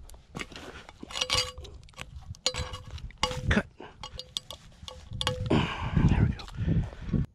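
Light metallic clinks as a steel spade blade is handled while fishing line is tied to it, several followed by a short ringing tone from the blade. Near the end comes a louder stretch of rustling handling noise, which cuts off suddenly.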